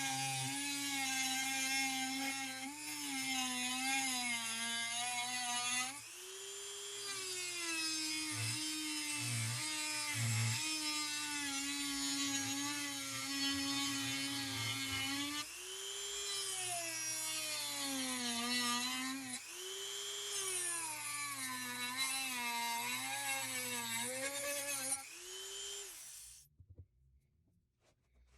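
Dremel rotary tool cutting metal, a high motor whine that sags in pitch as the tool bears into the work and rises again four times as it eases off. The motor switches off a couple of seconds before the end.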